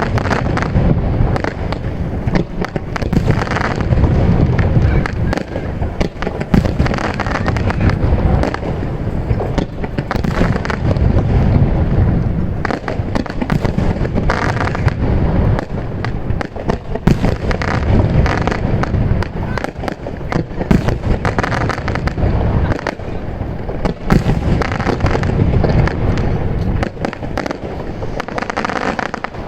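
Aerial firework shells bursting one after another in a continuous barrage, deep booms mixed with crackling.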